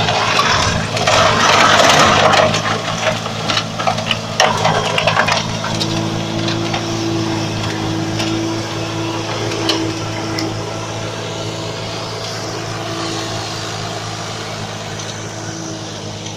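Antonio Carraro TRX 6400 tractor's diesel engine running under steady load while its Tehnos mulcher shreds tall dry grass and brush, with loud rough chopping and sharp cracks from debris in the first five seconds. The mulcher then settles to a steadier drone, with a held whine joining about six seconds in, and the whole sound slowly fades as the tractor moves away.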